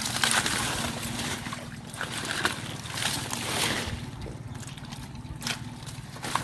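Water sloshing and splashing in irregular bursts as someone moves and works by hand in shallow water among water hyacinth, over a faint steady low hum.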